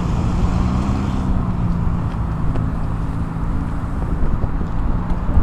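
Road traffic: car engines and tyres making a steady low rumble.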